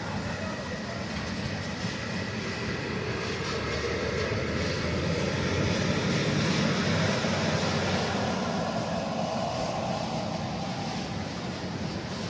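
Steady low roar at a burning house fire, from the fire and the running fire engines together. It swells towards the middle and eases again near the end.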